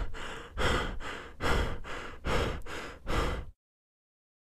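A person breathing heavily or sighing close into the microphone, a run of about five noisy breaths roughly one every three-quarters of a second, each hitting hard and then fading. The breaths cut off suddenly about three and a half seconds in.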